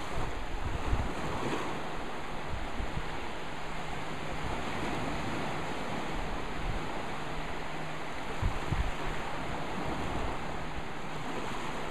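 Small sea waves breaking and washing up on a sandy shore, a steady surf noise, with wind buffeting the microphone about a second in and again near the end.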